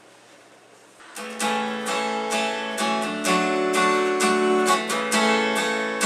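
Acoustic guitar strummed in a steady rhythm of chords, starting about a second in after a brief hush.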